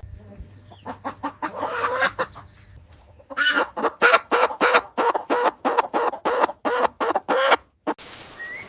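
An animal giving a fast run of short clucking calls, about three a second. The calls are soft at first and grow louder a few seconds in, then stop shortly before the end.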